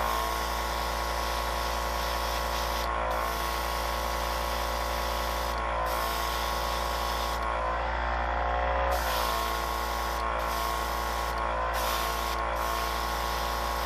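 Paint being sprayed with a steady hiss that breaks off briefly several times, over the steady hum of a small motor.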